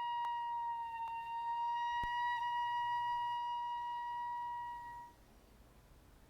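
A traditional Japanese wind instrument of Kibigaku music holding one long high note, with a slight bend in pitch, which stops about five seconds in. A few soft knocks come in the first two seconds.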